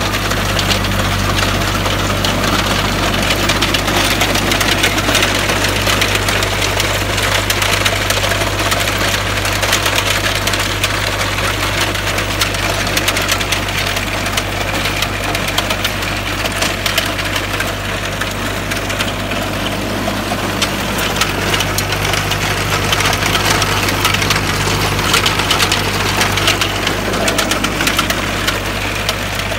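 Steyr 768 tractor's diesel engine running steadily as it pulls a sugar beet inter-row hoeing cultivator with a fertiliser unit, under a dense, constant clatter and rattle from the moving implement.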